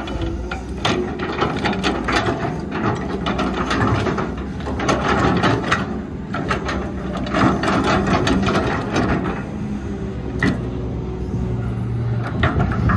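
Excavator's diesel engine working, with frequent clanks and knocks of soil and rock being scooped and dropped into a dump truck's steel bed. The engine drone steadies near the end.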